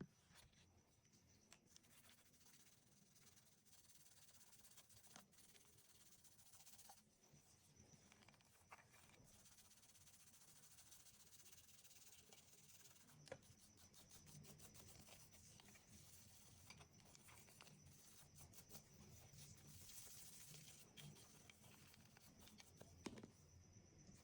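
Near silence, with faint scraping and scattered light clicks.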